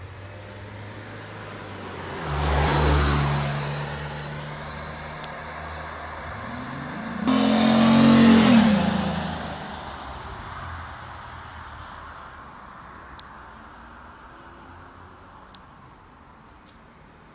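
1997 Chevrolet Monte Carlo's 3.1-litre V6, running through Dynomax Super Turbo mufflers with the resonator deleted, accelerating past twice about five seconds apart. Each pass swells up and fades away. The second is the louder, and its pitch drops as it goes by.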